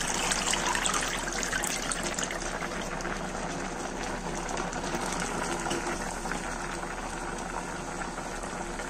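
Eggplant curry boiling briskly in an open metal kadai: a steady bubbling with many fine pops.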